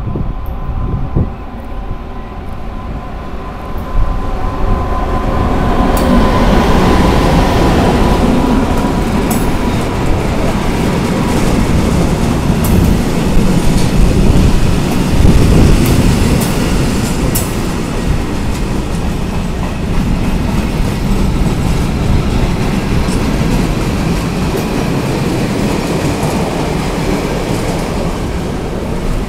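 Freight train passing, hauled by an ÖBB electric locomotive: a steady whine as the locomotive approaches, then, growing louder about four to six seconds in, the steady rumble of the wagons rolling by with scattered clicks of wheels over the rail joints.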